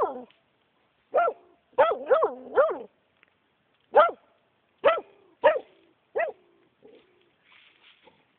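A hunting dog barking about eight times in uneven bursts at a squirrel gone to ground in a hole.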